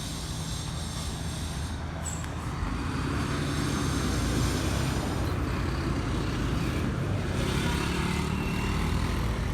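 A motor vehicle's engine running close by over road traffic noise, a steady low rumble that grows louder a couple of seconds in and then holds.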